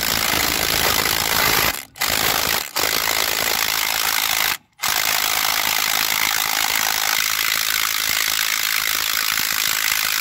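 Cordless impact driver hammering steadily as it backs out the piston set screw of an excavator hydraulic cylinder, a screw staked with a prick punch to keep it from backing out. It stops briefly three times in the first five seconds.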